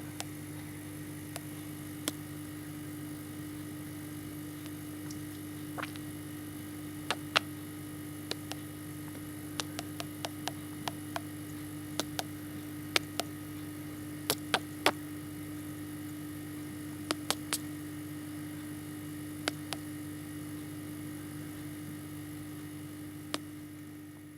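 Steady low electrical hum with scattered sharp clicks and taps at irregular intervals, most of them bunched in the middle. No bird calls are heard.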